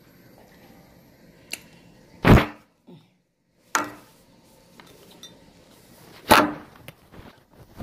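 Steel plate clattering against a table as it is set down and moved: three loud knocks and a few lighter clicks.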